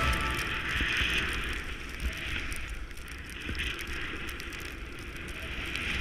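Skis hissing through deep powder snow, swelling and easing in waves, with wind buffeting the camera microphone as a low rumble.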